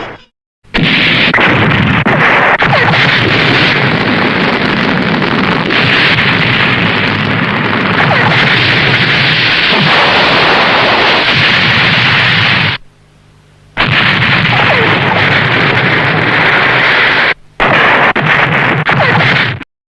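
Tokusatsu explosion sound effects: a loud, sustained rush of blast noise in three long stretches, broken by short silences about half a second in, around thirteen seconds and near the end.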